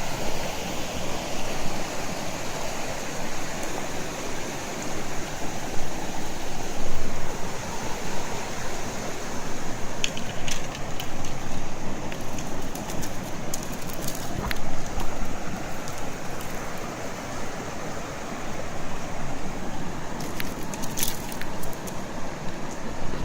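Steady rushing river water, with a few light clicks partway through and near the end.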